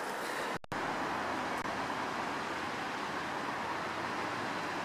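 Steady outdoor background noise, an even hiss and hum with no distinct events. It drops out for a split second about half a second in.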